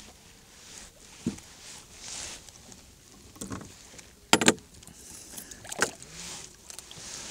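Gear and hands knocking against a small fishing boat: a few sharp knocks and clatters, the loudest a quick pair about four seconds in, over a soft hiss of water and wind.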